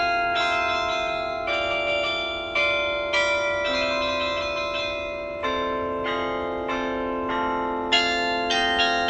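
Tower bells playing a slow melody, a new note struck roughly every half second to second, each ringing on under the next.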